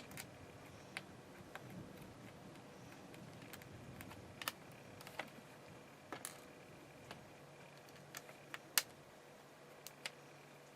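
Small screwdriver work on the mounting screws of a laptop's LCD panel: faint, scattered clicks and ticks at irregular intervals as the screws are backed out and handled, the sharpest click about nine seconds in.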